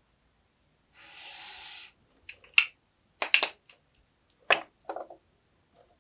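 Toys being handled on a tabletop: a short rustling hiss about a second in, then a few sharp taps and knocks as a kinetic-sand cup and a squishy toy are set down.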